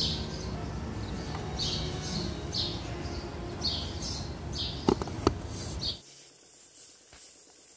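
A bird chirping over and over, short falling chirps about once a second, over steady workshop background noise, with two sharp clicks about five seconds in. The sound drops away abruptly about six seconds in.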